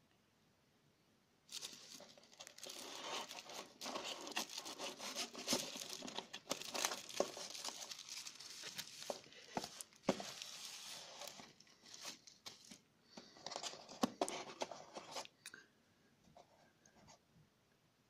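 Plastic bubble wrap crinkling and crackling as it is handled and pulled off a smartphone. It starts about a second and a half in, comes in several spells with short pauses, and stops a few seconds before the end.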